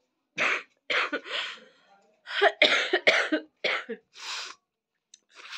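A woman coughing in a run of short bursts into a cloth held over her mouth, with one more short cough near the end.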